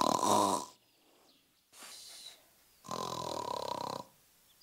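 Exaggerated cartoon snoring, performed by a human voice for a sleeping hand puppet. There are two long snores, each about a second long, with a soft breathy outbreath between them.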